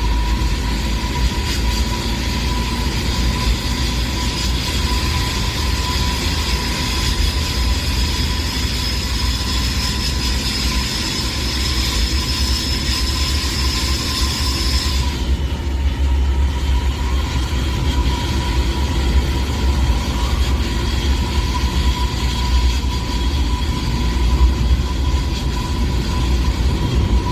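A vehicle running: a steady low rumble with a steady hum above it, and a high whine that slowly rises in pitch and then cuts off about halfway through.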